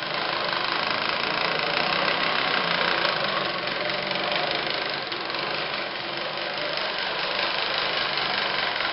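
Push reel mower rolled across a floor with its reel driven backwards, the blades grinding against the bed knife through lapping compound: a steady grinding clatter while backlapping the reel sharp.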